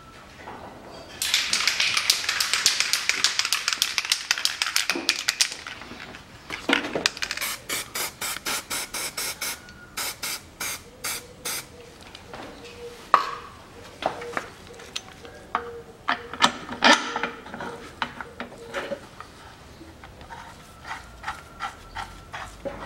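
Aerosol lubricant sprayed in a loud hiss for about four seconds, applied to the tips of the engine-mount bolts. A ratchet wrench then clicks in quick, even runs as the nuts are run on.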